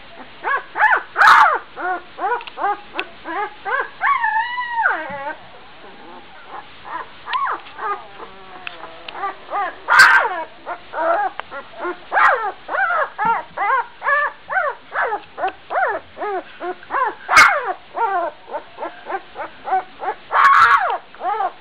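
Twelve-day-old Gordon setter puppy barking in rapid strings of short, high-pitched yaps, two or three a second. About four seconds in comes one longer cry that rises and falls, and a few louder, sharper yelps stand out among the calls.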